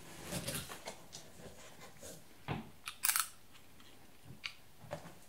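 A blade slitting the packing tape on a cardboard box, then the cardboard flaps pulled open: scattered scrapes and clicks, with the loudest, a short sharp crackle, about three seconds in.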